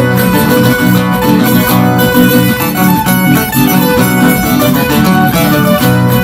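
Andean folk music accompanying a traditional dance, with held chords over a steady, repeating beat.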